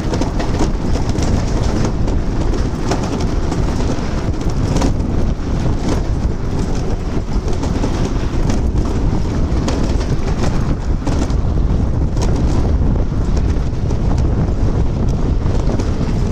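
Ola electric scooter riding at speed over a tiled paver road: a steady rumble from the tyres and rattling from the scooter, with many small clicks and wind buffeting the microphone.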